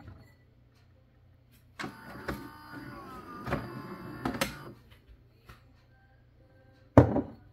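A Philips LatteGo 5400 espresso machine's motor whirs for about three seconds with a wavering whine and a few clicks. A sharp knock comes near the end.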